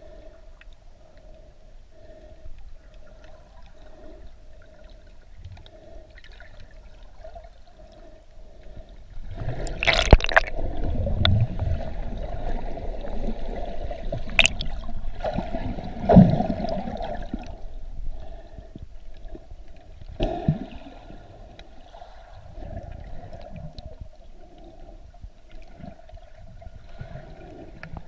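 Underwater water noise picked up by a submerged camera: gurgling and churning water with a faint steady hum, louder through the middle. A few sharp knocks are heard.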